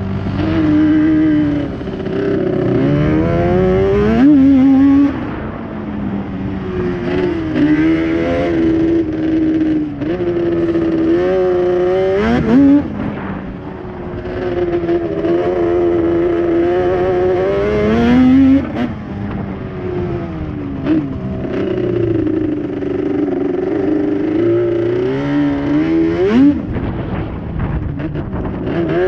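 Quad's engine being ridden hard on sand, revving up and dropping back again and again as the throttle is opened and closed, its pitch climbing and falling over a few seconds at a time.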